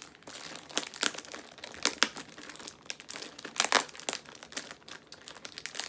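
Plastic bag crinkling in irregular sharp crackles as it is handled and pulled at while trying to get it open; the bag is taped shut.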